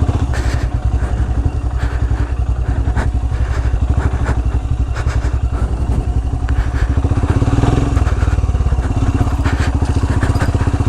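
Royal Enfield Himalayan's 411 cc single-cylinder engine running at low revs while the bike is ridden over slippery mud, the engine note rising briefly about seven to eight seconds in.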